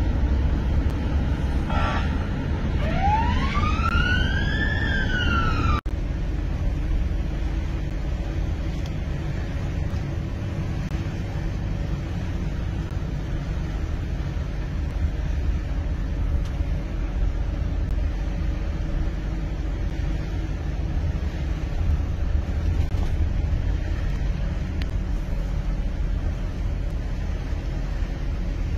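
Engine and tyre noise inside a moving van's cab: a steady low rumble. About three seconds in, a wailing tone rises in pitch for about two seconds and cuts off suddenly.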